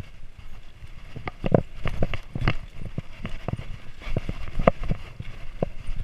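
Mountain bike rattling and clanking as it rolls over a rocky dirt trail: irregular sharp knocks, a few much louder jolts where the wheels hit rocks, over a low rumble of tyres on dirt.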